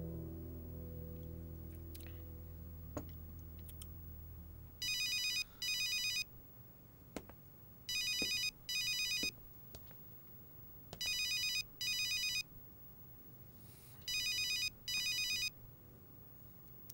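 Mobile phone ringing: four double rings about three seconds apart, each ring a short, rapidly trilling electronic tone. A soft music tail fades out before the first ring.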